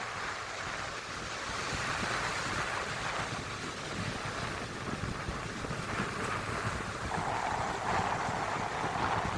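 Ocean surf washing onto a beach, the rush of water swelling and easing every few seconds, with wind rumbling on the microphone.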